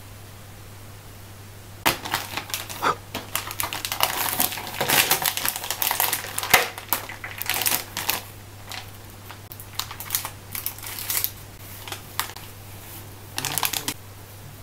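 Plastic packaging of a resealable sheet-mask pouch crinkling and clicking as it is handled and its flip-top lid opened. The sound starts about two seconds in with a dense run of crackles, then goes on as scattered crinkles while a sheet mask is drawn out.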